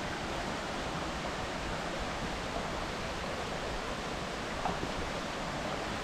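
Steady rushing of a forest stream, an even hiss of water with nothing standing out from it.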